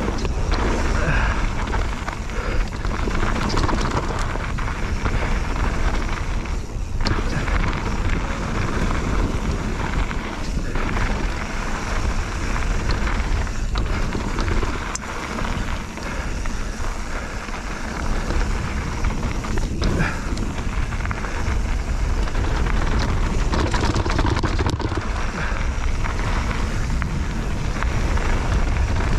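Mountain bike (Bird Aeris 145) riding down a rough trail: tyres rolling over stony ground and the bike rattling with many small knocks, under heavy wind buffeting on the action camera's microphone. There are brief lulls about seven seconds in and around the middle.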